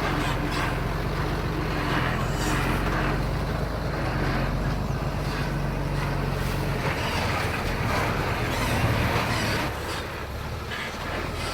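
Heavy diesel earthmoving machinery running under load, a steady low drone with scattered clanks and knocks. The engine note changes about two-thirds of the way through.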